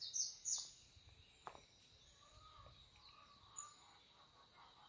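A small bird's quick series of short downward chirps that fades out within the first second, then faint background with one sharp snip about a second and a half in: scissors cutting through a fleshy succulent stem.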